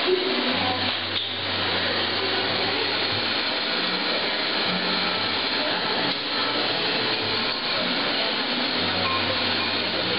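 Hot Head lampworking torch burning MAPP gas, its flame hissing steadily. A low hum comes and goes underneath.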